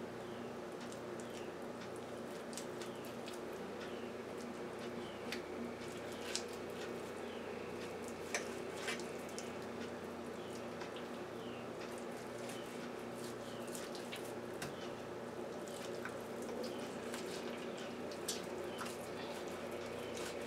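Faint, irregular wet clicks and scrapes of a knife cutting raw chicken breast away from the bone, over a steady background hum.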